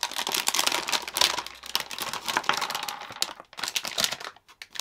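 Plastic anti-static bag crinkling as a motherboard in it is pulled out of its box and handled, in irregular bursts with short pauses in the second half.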